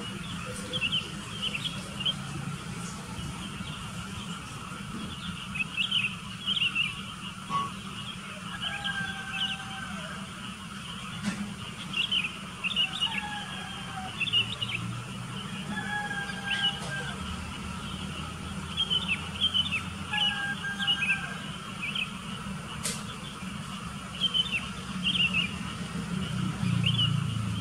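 Sooty-headed bulbuls calling: clusters of quick, bright chirps every second or two, with a few short two-note whistles in the middle. A low steady rumble runs underneath.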